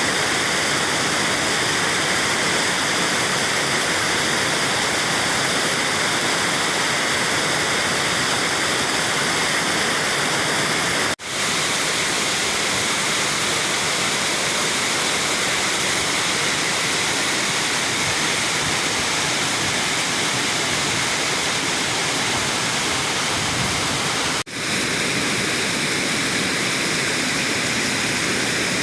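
Waterfall: a steady, dense rush of falling water. It drops out for an instant twice, about 11 and 24 seconds in.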